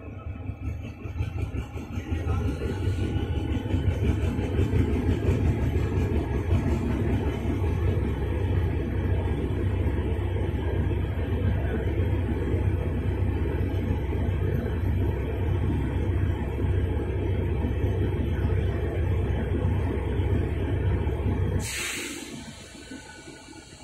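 Diesel-electric engine of a GE-built GEA-class locomotive running loudly while the train stands, a deep steady rumble that swells about two seconds in and drops away near the end, with a brief hiss just before it drops.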